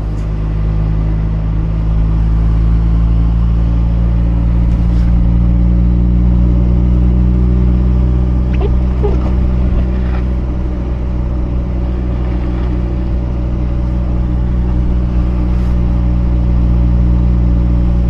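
Mazda RX-8's twin-rotor Renesis rotary engine running at a steady speed, a loud, even low drone that holds one pitch throughout, with a few faint clicks.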